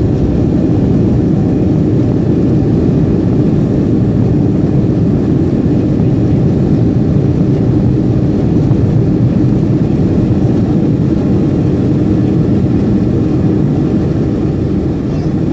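Steady cabin noise inside a Boeing 737-300 rolling along the runway after landing: its CFM56 turbofan engines and the wheels on the runway blend into one even, low rumble.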